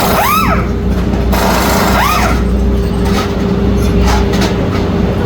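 Steady mechanical hum of race-pit machinery, with two short whines that rise and fall in pitch about two seconds apart and a few light metallic clicks later, as the dragster is being torn down.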